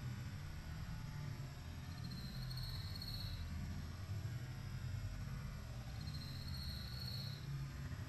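Faint high-pitched insect trills, twice, each lasting about a second and a half, over a low steady rumble.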